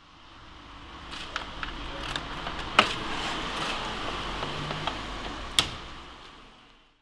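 Background noise of a room fading in and out, with scattered small clicks and two sharper knocks, one about three seconds in and one near the end.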